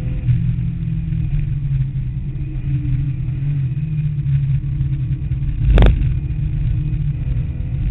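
Porsche 911's air-cooled 3.2-litre flat-six running steadily at speed, heard inside the cabin as a deep rumble. A single sharp thump comes about six seconds in.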